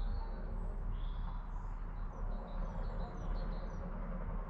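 Small birds chirping and singing, with many short high chirps and quick whistled glides scattered through, over a steady low background rumble.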